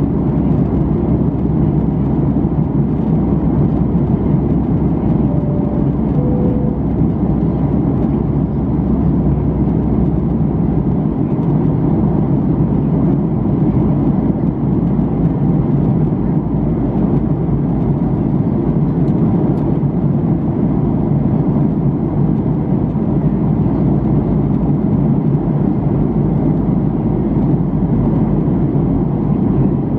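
Steady cabin noise of a Boeing 737-800 airliner, a constant low rush of engine and air noise. Two brief tones, the second lower, sound faintly about six seconds in.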